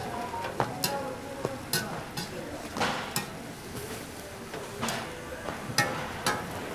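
Metal cooking utensils knocking and scraping on a street-stall griddle, a series of sharp clicks over a steady frying sizzle.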